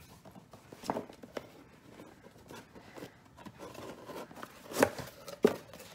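Cardboard box and its paper contents being handled: light rustling, scraping and small clicks, with two sharper, louder knocks or crinkles near the end.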